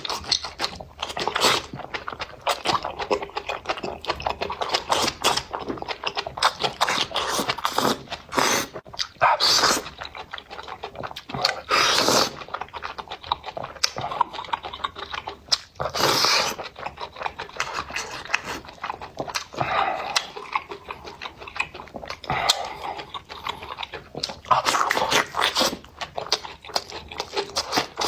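Close-miked eating sounds of a person chewing spicy enoki mushrooms: many short wet clicks and smacks, with a few longer noisy mouthfuls.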